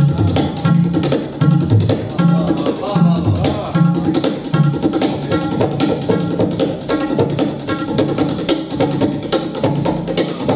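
Tabla played in a fast, steady rhythm, deep bass strokes on the bayan recurring about twice a second under quick strokes on the dayan, imitating the running rhythm of a train.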